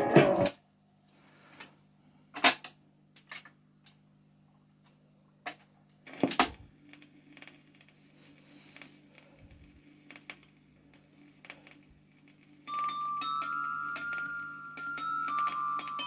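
Dansette Major record player between records: the song cuts off just after the start, then a quiet stretch of a faint steady low hum with a few sharp mechanical clicks, the loudest about two and a half and six and a half seconds in, as the serviced record-changer mechanism cycles. Near the end the next record starts playing with a chiming, bell-like intro.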